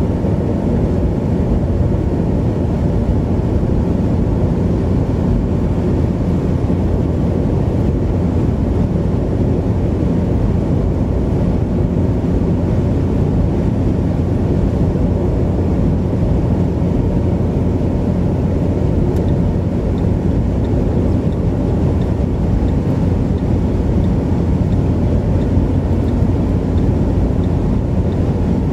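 Steady road and engine noise heard inside a car's cabin while driving at speed, a low, even rumble.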